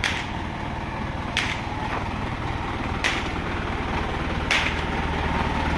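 Isuzu ELF lorry's diesel engine idling steadily, with a sharp click about every second and a half.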